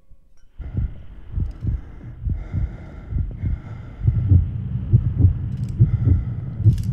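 Horror film sound design: low pulses repeating a few times a second under a steady high drone. They start after a brief silence and grow louder about four seconds in.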